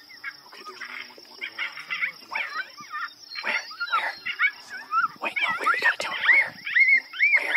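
Coyotes yipping, barking and howling in a chorus of short calls that rise and fall in pitch. The calls grow denser toward the end and settle into a run of evenly repeated yips.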